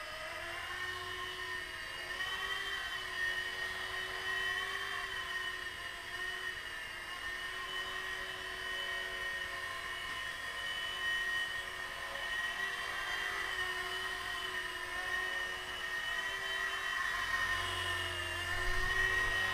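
Blade micro RC helicopter in flight: a high whine from its motor and spinning rotor blades, the pitch wavering gently up and down with the throttle.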